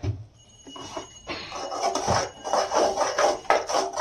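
A metal spoon stirring and scraping thick tomato chutney in a steel kadhai, with frequent small clinks and knocks of spoon on pan starting about a second in.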